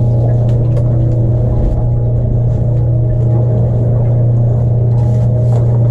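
Boat's outboard motor running at a steady hum, with a few faint knocks and clicks from handling on deck.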